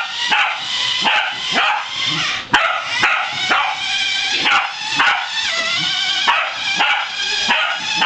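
Corgi barking and yipping excitedly in a fast, unbroken string of short, high-pitched barks, several a second.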